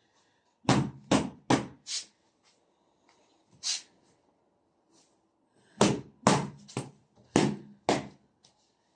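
Sharp whacks on a wool-filled quilt: a run of four quick strikes, a single one, then five more.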